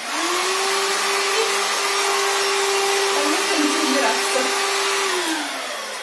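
Ginzzu cordless stick vacuum cleaner switched on: its motor spins up quickly and runs with a steady whine and airflow hiss, then is switched off about five seconds in and winds down, its whine falling.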